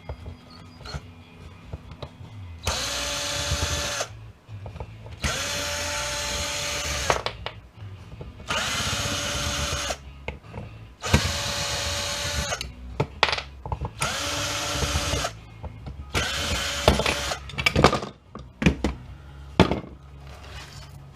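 Power drill running in six short bursts of a second or two each, a steady whine, driving out the screws in the back of a metal switch box. Short clicks and knocks come between the bursts and near the end.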